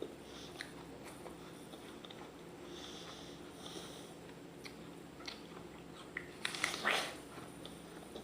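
Close-up eating of raw apples: scattered small crunches and mouth clicks of chewing, with one louder crunch a little before the end, likely a fresh bite into the apple.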